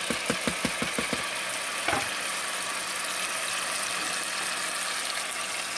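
Chopped tomatoes and peppers sizzling in hot oil in a stainless steel frying pan, a steady hiss. In the first second there is a quick run of soft knocks, and there is one more knock about two seconds in.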